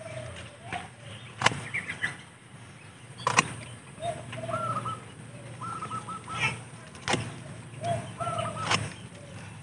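Hand pruning shears snipping twigs, a sharp click about four times, with birds calling in the background in short repeated notes.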